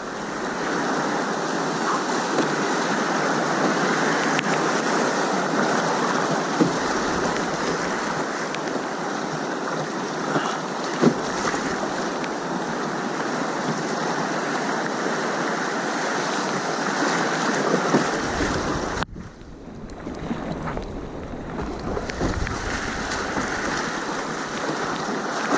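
Steady rush of river whitewater around a kayak running through a rapid, with a few faint knocks. The rush drops away for about a second roughly three quarters of the way through, then comes back.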